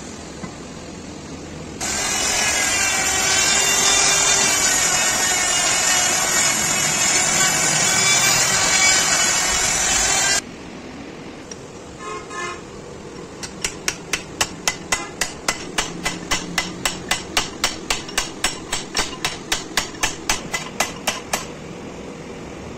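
A loud, steady whirring noise starts abruptly about two seconds in and cuts off about eight seconds later. After a short metallic ring, hammer blows fall on a steel drift held in the king pin bore of a Hino truck's steering knuckle. They come evenly, about four a second, for roughly eight seconds.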